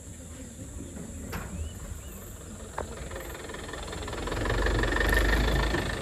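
A vehicle's engine running, swelling louder about four seconds in and dropping back near the end.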